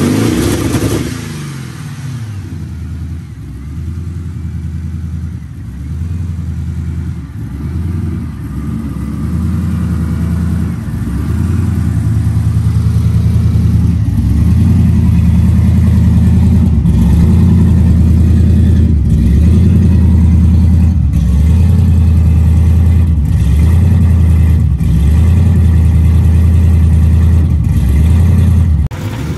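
Built twin-turbo Mustang GT V8 running, dropping back from a brief rev at the start and then idling with a slight rise and fall about every two seconds. It gets louder near the tailpipes.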